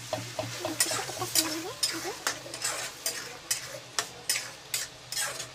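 Metal spatula scraping and knocking against a metal kadhai, about two strokes a second, as thick chickpea curry (chole) with potatoes is stirred over the heat, with the masala sizzling underneath.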